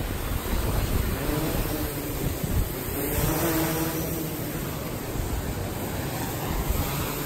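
Gannet Pro waterproof drone lifting off from the water, its rotors humming as they spin up about a second in and then holding a steady pitch, against a steady wash of wind and surf.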